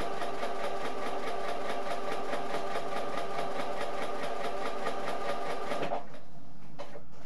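Electric domestic sewing machine running steadily at speed, its needle stitching a seam with a rapid, even rhythm. It stops about six seconds in.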